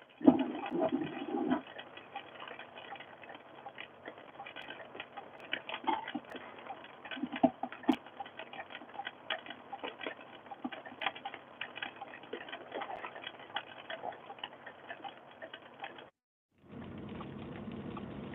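Many irregular light ticks and taps over a faint hiss, with a few louder knocks in the first second and a half. About 16 seconds in the sound cuts out briefly, then a steady hiss follows.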